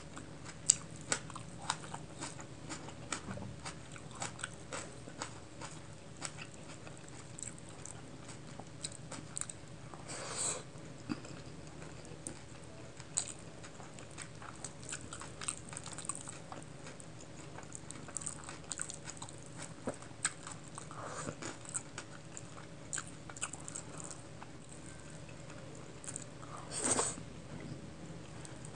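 Close-miked eating sounds: chewing with many small wet mouth clicks, and fingers squishing yellow pulao rice into chicken curry gravy. Two louder brief noises stand out, about ten seconds in and near the end.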